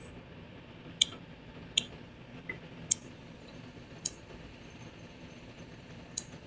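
Faint steady hiss broken by six short, sharp clicks at irregular intervals.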